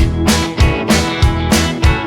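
Background music: an instrumental break in a song, with guitar over a steady drum beat of about three strokes a second.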